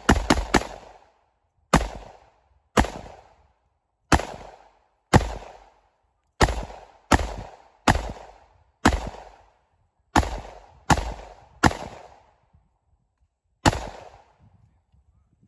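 A 5.7 mm firearm fired semi-automatically in a string of about fourteen shots, each a sharp crack with a short echoing tail. The first shots come in quick succession, then the rest follow about a second apart, the last a couple of seconds before the end, emptying the magazine.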